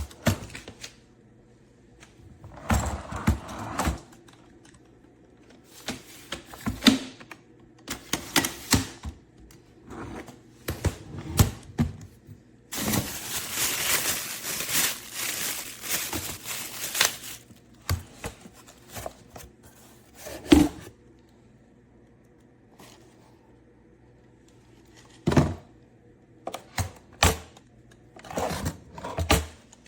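Handling of an aluminium makeup train case and its contents: scattered clicks, knocks and thunks, with a denser rattling, scraping stretch of about four seconds near the middle.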